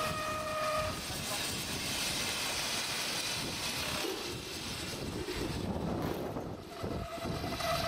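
Miniature steam locomotive standing while its tender is filled from a station water crane: a steady rushing hiss of water and steam. A steady whistling tone sounds at the start, stops about a second in, and returns near the end.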